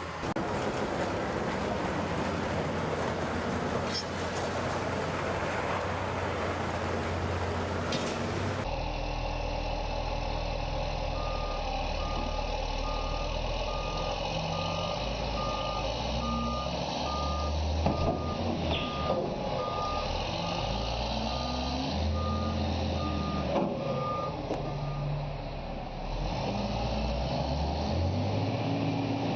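Heavy vehicle's diesel engine running with its revs stepping up and down, and from about a third of the way in its reversing alarm beeps steadily, about two beeps a second, before stopping near the end.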